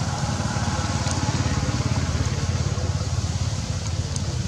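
An engine running steadily with a low, fast, even pulse that holds the same speed throughout.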